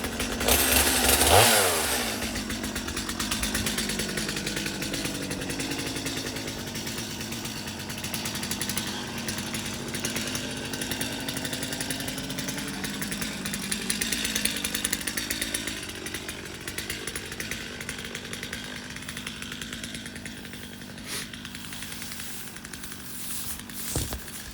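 Two-stroke chainsaw running just after a cold start: revved briefly about a second in and dropping back, then idling steadily.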